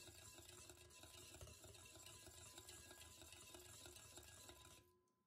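Very faint whisking: a wire whisk beating rice-flour batter in a stainless steel bowl. It cuts to dead silence near the end.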